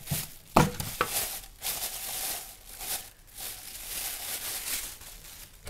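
Packaging crinkling and rustling as it is handled and pulled open by hand, with a few short, sharp crackles in the first second.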